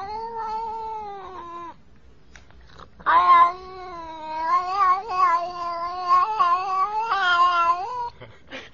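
Black-and-white domestic cat meowing: a call of about two seconds, then after a short pause a long drawn-out call of about five seconds whose pitch keeps wavering up and down, like talking.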